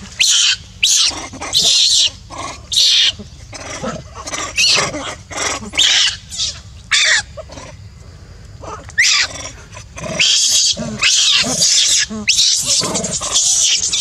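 Baby macaques screaming in short, shrill bursts, one after another, while wrestling and biting; the screams run almost without a break for the last few seconds. These are distress screams from a baby being bitten.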